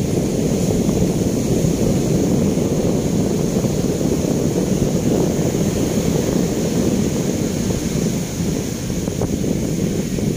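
Steady wind buffeting the microphone over the continuous rush of ocean surf on a beach.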